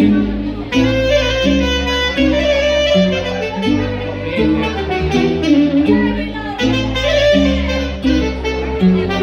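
Saxophone playing a melody live through a PA, over an amplified keyboard backing with a steady bass line.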